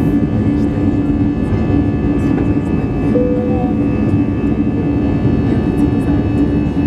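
Airbus A320 jet engines at takeoff thrust during the initial climb, heard inside the passenger cabin: a steady, loud rushing noise with a constant low hum underneath.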